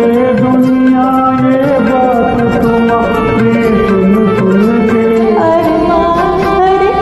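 Karaoke backing track of an old Hindi film song playing, with a melody line of held and gliding notes and singing over it.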